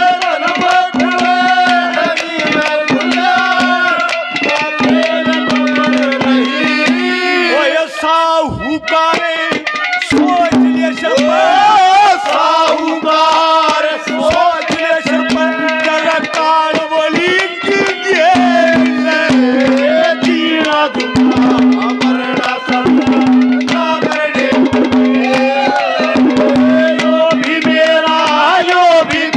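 Instrumental interlude of Haryanvi ragni folk music: a melody line over a steady held drone note, with hand drums playing a fast beat.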